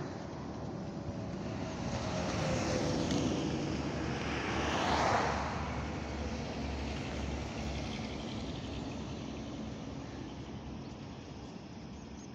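Road vehicles passing at speed on a highway: one goes by close about five seconds in, its tyre and engine noise swelling and then falling away, after a drone that falls in pitch in the first few seconds. Steadier, fading traffic noise follows.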